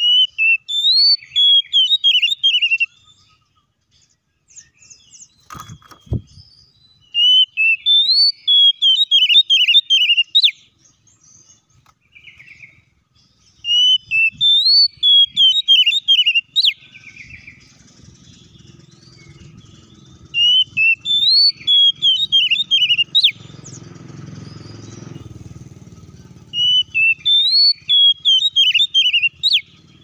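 Oriental magpie-robin (kacer) song: the same short phrase five times, about every six to seven seconds, each a rising whistle followed by a quick run of trilled notes. A single thump about six seconds in, and a low rumble through the second half.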